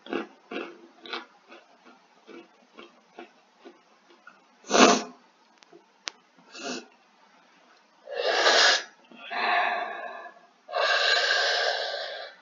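Someone chewing crunchy puffed snacks, with soft crunches a few times a second, then one loud sneeze about five seconds in. Near the end come three long, loud breathy exhales of about a second each, huffing against the burn of a very spicy snack.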